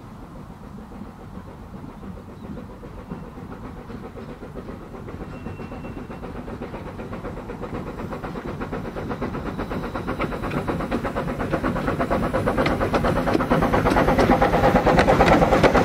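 Exmoor Steam Railway-built 15-inch gauge 0-4-2T tank engine working a passenger train, its steam exhaust beats and running on the rails growing steadily louder as it draws close.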